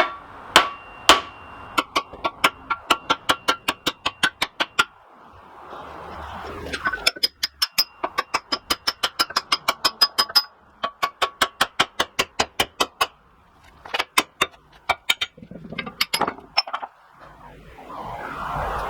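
Rapid, evenly spaced metallic clicks, about four or five a second, each with a short bright ring, coming in several runs broken by brief pauses, as the old post vise's metal parts are worked by hand.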